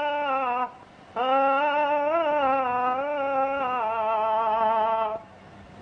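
A man's voice chanting in the Arabic religious style, drawing out long ornamented notes in two held phrases with a short breath between them about a second in. The chant stops a little after five seconds, leaving faint hiss.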